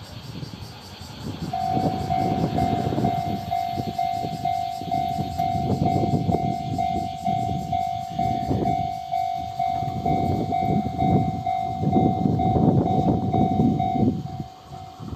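Japanese level-crossing warning bell sounding in rapid, even pulses, starting about a second and a half in and getting quieter near the end, while a Kobe Electric Railway 1100 series train runs past with a heavy rumble of wheels on the rails that swells and fades in waves, loudest near the end.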